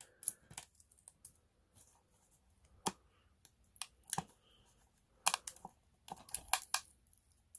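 Fingernails picking and scratching at the plastic security strip and wrap on a DVD case: irregular small clicks and scratches, a cluster of them near the end.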